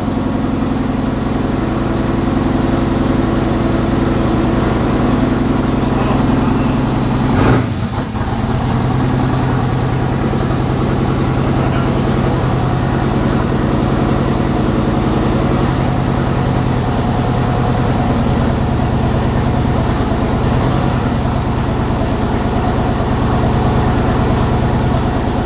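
Twin-turbo 408 LS V8 idling steadily on its first-start base tune, its idle easing down from about 1,350 to 1,100 rpm. A single short knock about seven and a half seconds in.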